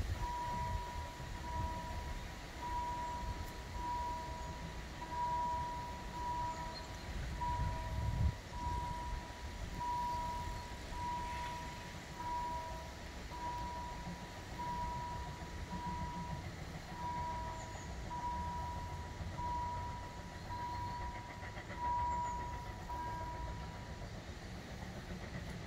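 Level-crossing warning signal sounding a repeated electronic ding about once a second, which stops shortly before the end, over a low rumble of road traffic.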